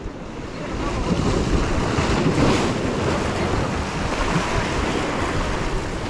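Sea waves breaking and washing over the rocks close by, growing louder about a second in, with wind buffeting the microphone.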